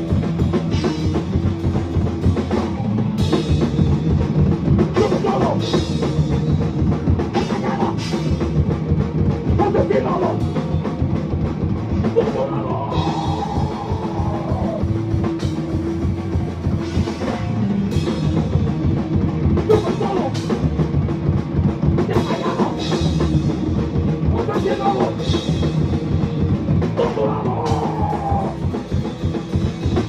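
Ska-core band playing live with no vocals: drum kit and electric guitar, loud and continuous.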